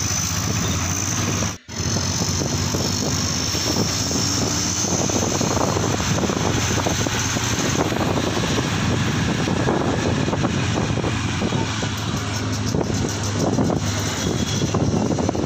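Steady road noise of riding a motorbike through town traffic: the engine running under wind rushing over the microphone. The sound cuts out briefly about a second and a half in.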